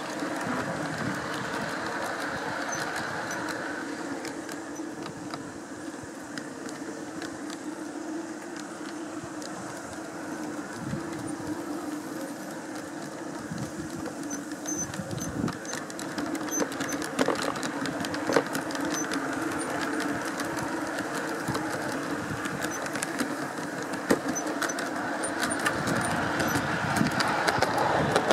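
Garden railway train running along its track, heard from one of its wagons: a steady rolling rumble of wheels on rail with frequent irregular clicks and ticks at the rail joints.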